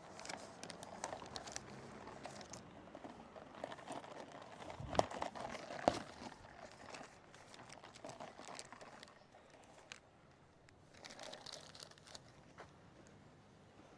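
Faint crinkling and clicking handling noises, with two sharper knocks about five and six seconds in; no engine is running.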